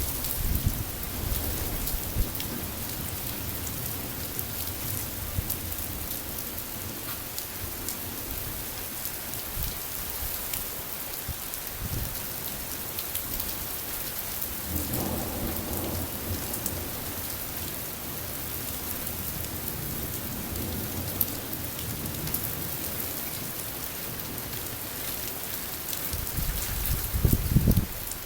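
Steady rain hissing down during a thunderstorm, with thunder rumbling low several times: briefly near the start, again about halfway through, and loudest near the end. One sharp crack stands out about twelve seconds in.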